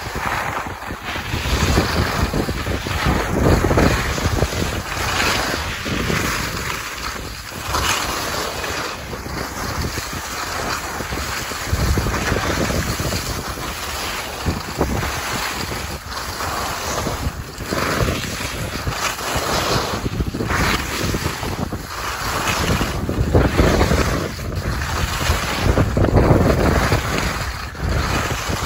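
Wind rushing over the microphone of a skier heading downhill, with the hiss of skis scraping over packed snow swelling and fading through the turns.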